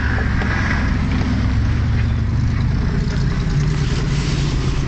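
Off-road 4x4 vehicle engine running steadily under way, a low drone whose pitch shifts a little about three and a half seconds in.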